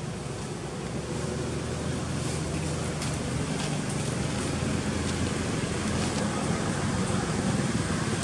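A road vehicle passing: a steady rushing noise that grows louder toward the end.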